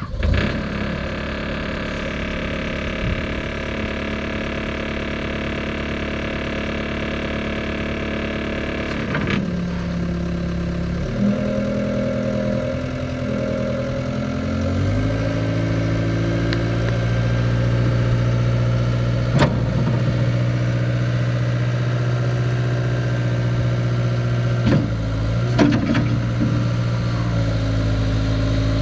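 Cat 262C skid steer's diesel engine starting and running, its speed stepping up a few times until it holds a higher steady speed from about 15 seconds in. A few short knocks are heard near the end.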